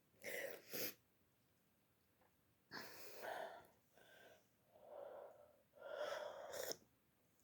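A person with a cold making a run of short, breathy noises from the nose and throat: sneeze- and wheeze-like bursts about a second apart, with quiet between them.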